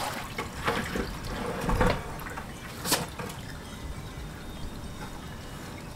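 Dirty maceration water pouring and splashing out of a tipped plastic bucket onto concrete and a drain grate as a skull-maceration bucket is emptied. The splashing eases after about two seconds into a quieter trickle, with one sharp knock about three seconds in.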